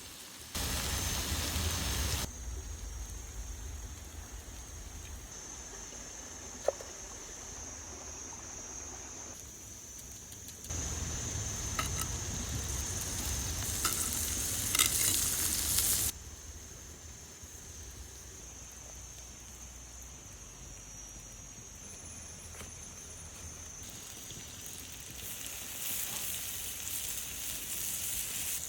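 Steak sizzling on a hot stone, a steady hiss that gets louder and quieter in stretches, with abrupt jumps in level at several points.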